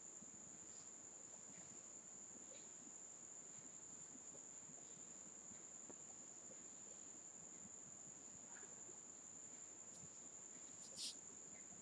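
Near silence: room tone with a steady, faint high-pitched whine, and one brief click near the end.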